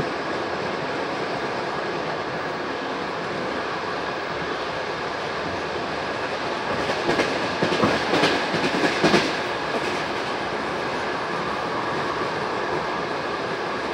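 Steady rumble of a passenger train's wheels rolling on the track, heard from aboard, with a quick run of clattering knocks, clickety-clack, from about seven to nine and a half seconds in.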